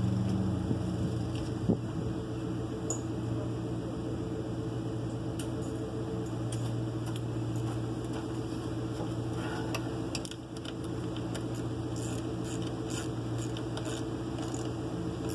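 A steady low machine hum made of several even tones, with scattered light clicks and taps from about halfway on as hands work on parts around the engine.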